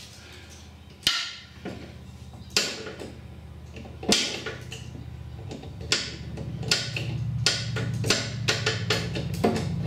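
Hand tools clicking and knocking against the steel frame of a ride-on mower's cutter deck while a fastener is being done up: sharp single clicks every second or so, coming quicker and more regularly after about six seconds, over a steady low hum.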